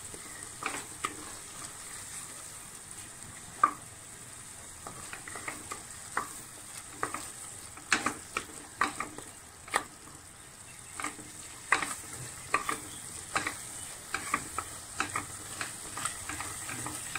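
Wooden spatula stirring and scraping frying onions and tomato in a pressure cooker, over a steady sizzle of hot oil. The scrapes come in irregular strokes, more often from about eight seconds in.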